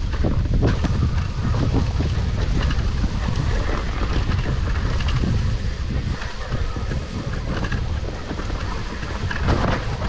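Wind buffeting the camera microphone on an electric mountain bike riding downhill on a rough dirt trail, with the bike rattling and knocking over the bumps.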